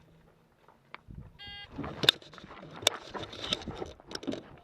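A shot timer's short beep about one and a half seconds in, followed by rustling and a series of sharp clicks and knocks as the shooter moves and handles the rifle and gear.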